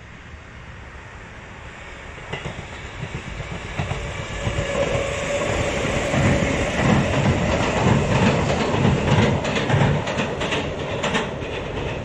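Sanyo Electric Railway 3000-series local train passing close by, its wheels clattering over the rail joints in a rhythmic clickety-clack. It grows louder from about two seconds in and is loudest as the cars go past in the second half.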